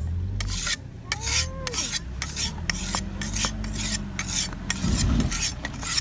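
A steel cleaver blade being sharpened by hand with a whetstone: quick scraping strokes of stone on metal, about three a second.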